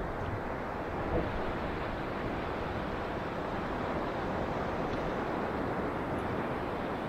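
Ocean surf breaking and washing up on a sandy beach: a steady rush of waves, swelling slightly about a second in.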